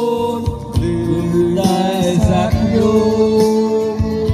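Background music: a singer holding long notes over instrumental backing.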